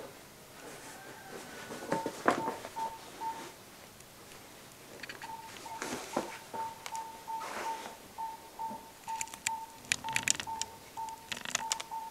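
A high electronic beep repeating evenly, about three short beeps a second, briefly about two seconds in and then steadily from about five seconds on. Sharp clicks and knocks sound over it, several of them close together near the end.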